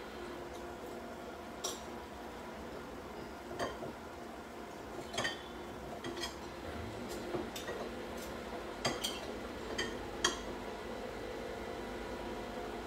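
Cutlery clinking against a plate now and then as someone eats, several separate sharp clinks over a steady low hum.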